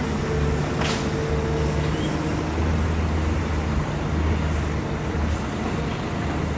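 Heavy diesel engine of construction machinery running steadily with a low, even hum. There is a brief hiss about a second in.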